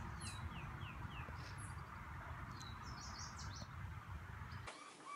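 Wild birds chirping over a steady low rumble of outdoor background noise, with a quick run of four falling notes about half a second in. The background stops abruptly shortly before the end.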